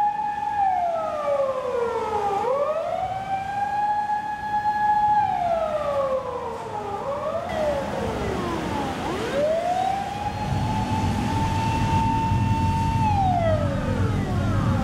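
Emergency vehicle sirens wailing, several overlapping: each rises, holds a steady note for a couple of seconds, then falls away. A low steady drone comes in about two-thirds of the way through.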